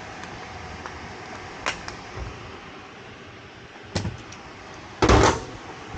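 Hand tools working on the front hub's 18 mm rear bolts: a few sharp metallic clicks, then a louder clatter of metal about five seconds in.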